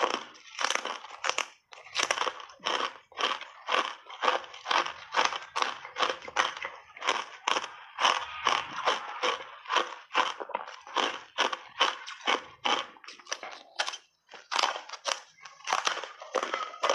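Hard ice coated in matcha powder being bitten and chewed close to the microphone: a steady run of sharp crunches, about two to three a second, with a brief pause twice.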